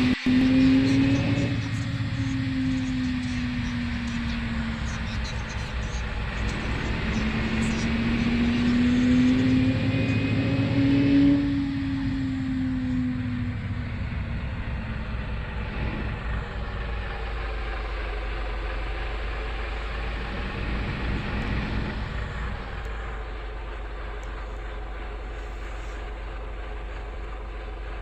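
Vehicle engine pulling uphill. Its pitch rises and then drops suddenly twice, like gear changes under load, before it settles into a lower, steadier run that grows a little quieter near the end.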